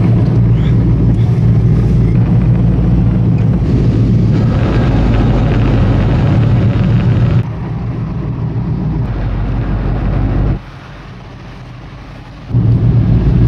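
Motor yacht engine running steadily at low speed, a deep hum. It drops somewhat about halfway through, then goes much quieter for about two seconds near the end before coming back.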